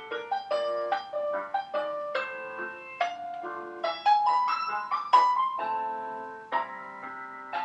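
Background piano music: a light melody of struck notes and chords, several notes a second, each ringing and fading.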